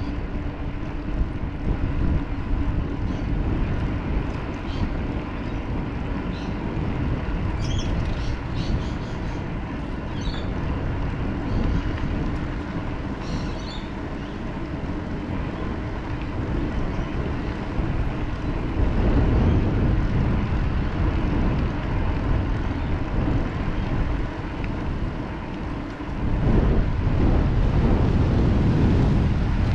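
Wind buffeting the microphone of a camera on a moving bicycle, a dense low rumble that swells in gusts about two-thirds of the way in and again near the end. A few faint, short high chirps come through in the first half.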